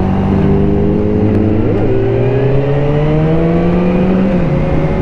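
BMW S1000RR inline-four engine pulling under acceleration, its pitch climbing steadily for about four seconds, then dropping near the end as it shifts up a gear.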